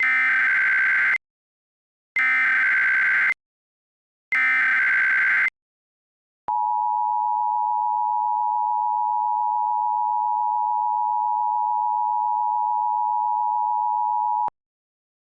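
Emergency Alert System tones: three SAME header data bursts, each a harsh buzzy screech about a second long with a short gap between. After a pause comes the EAS two-tone attention signal, held steady for about eight seconds and then cut off suddenly, heralding an emergency alert message.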